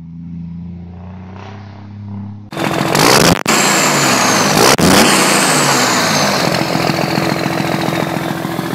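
A tractor engine idling steadily, then, about two and a half seconds in, a sudden much louder engine-revving sound effect cuts in. The revs sweep up and down under a slowly falling high whine, with two brief dropouts.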